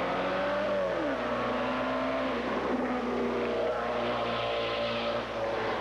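Formula 2 open-wheel race car engine at racing revs. The note drops about a second in as the car slows for a turn, then holds and climbs again in steps as it accelerates away up the hill.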